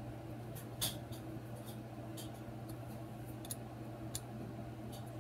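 Scattered small clicks and light scrapes of a thin metal tool working at a small plastic part, the sharpest a little under a second in, over a steady low hum.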